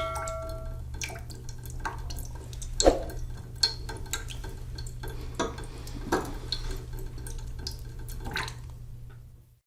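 Scattered light clinks, taps and drips over a steady low hum, with a ringing tone fading out about a second in.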